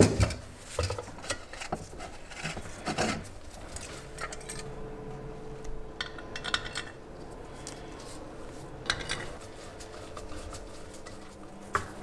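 Small metal parts being handled: irregular clinks and taps with short bouts of scraping, the sharpest click right at the start.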